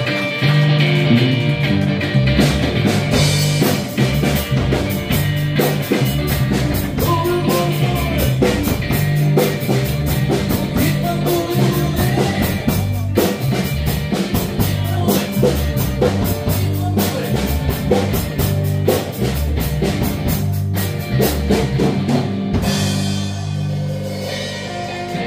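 Live rock band playing: electric guitar and bass guitar over a steady drum-kit beat. The beat breaks off near the end.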